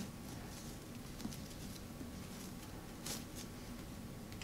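Faint rustling of cotton fabric and ribbon being handled while a drawstring bow is tied, with a soft tick about three seconds in.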